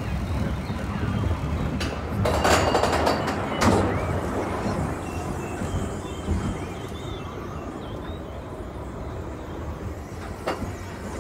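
Roller coaster train rolling on its steel track and climbing the lift hill: a steady low rumble and rattle of the cars, with a louder burst of noise about two to four seconds in.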